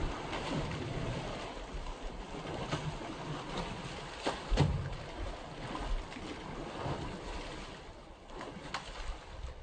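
Seawater sloshing and splashing around a swimming man and tiger, with wind buffeting the microphone and a few small clicks.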